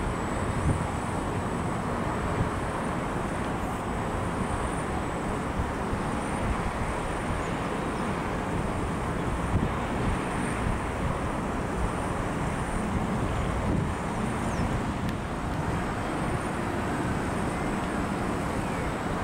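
Steady, even jet roar of an Emirates Airbus A380's four engines on approach to land, heard at a distance outdoors and blended with a hum of road traffic.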